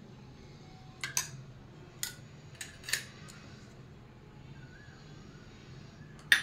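A metal spoon clinking against a bowl: a handful of light taps, then one sharper click near the end, over a low steady hum.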